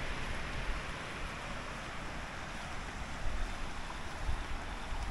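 A river flowing, heard as a steady hiss of running water, with wind buffeting the microphone in low rumbling gusts that grow stronger near the end.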